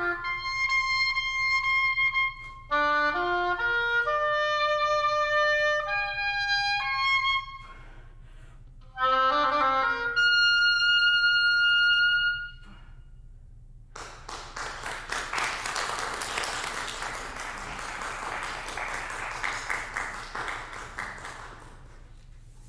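Unaccompanied oboe playing a run of separate notes that ends on a long held high note, about twelve seconds in. After a short pause comes applause for several seconds, fading out near the end.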